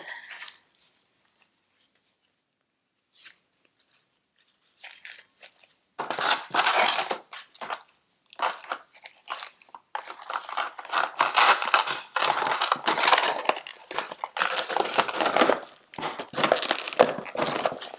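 Packaging being handled: irregular crinkling and rustling crackles that start about six seconds in and run on densely, after a stretch of near quiet broken by a few faint clicks.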